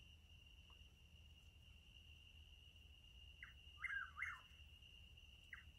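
A bird calling in the dark: a quick three-note phrase, a short first note and then two slurred notes, given twice about two seconds apart, over a faint steady high-pitched drone.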